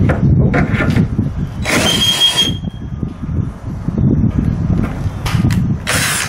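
Power drill opening up a pilot hole to 5/16 inch, the motor running under load, with a harsh squealing burst about two seconds in and another near the end as the bit bites.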